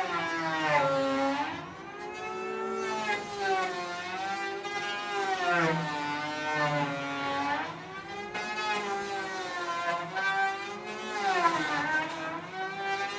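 Electric hand planer's motor whining, its pitch sagging and recovering again and again as the cutter head is loaded by the wood and then runs free.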